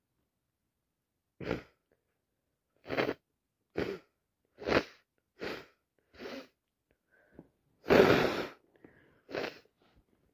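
A person with a head cold sneezing in a rapid series: about eight short bursts a second or less apart, the loudest and longest one a little after eight seconds in.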